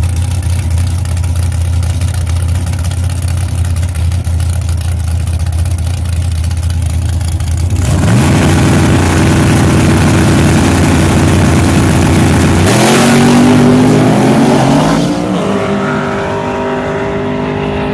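Drag-racing pickup truck's engine holding a steady low note on the starting line, then launching about eight seconds in. The pitch climbs, drops at a gear shift about five seconds later and climbs again, then the sound fades as the truck runs away down the track.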